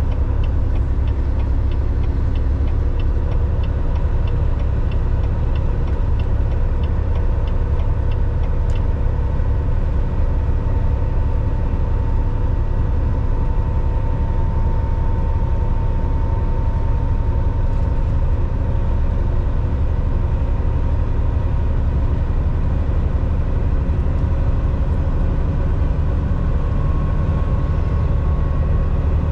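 Steady low drone of a Volvo semi truck's engine and road noise heard inside the cab while cruising on the highway, with faint steady tones above the rumble. A run of light, rapid ticks sits over it for roughly the first eight seconds.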